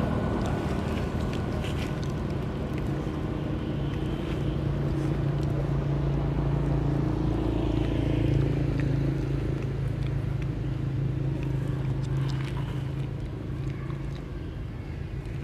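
A motor vehicle engine running steadily with a low, even hum, growing fainter near the end.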